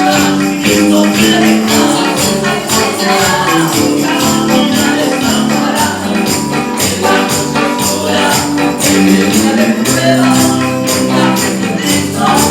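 Upbeat Christian praise-band music in an instrumental passage, with a tambourine keeping a steady beat over sustained instrument notes.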